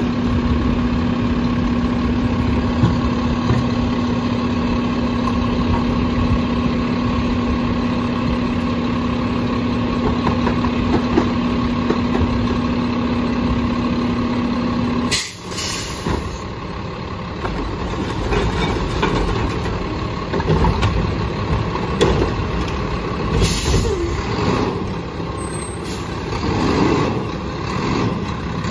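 Garbage truck fitted with a Curotto Can idling with a steady hum over the engine. About halfway through, the hum stops with a sharp air hiss, and the truck runs on unevenly with a couple more short air hisses.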